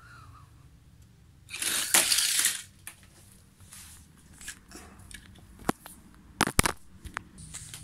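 Die-cast toy cars and plastic toy track: a loud rushing rattle about a second and a half in, lasting about a second, then several sharp plastic clicks and knocks.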